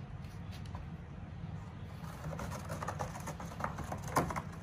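Steady low room rumble, joined from about halfway by a scatter of light clicks and taps.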